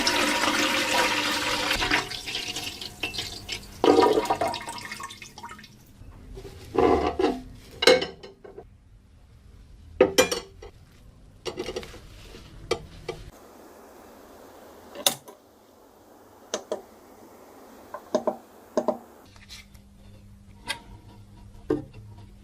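Water running for the first few seconds and dying away, then scattered clicks and knocks of small hard parts being handled and set down.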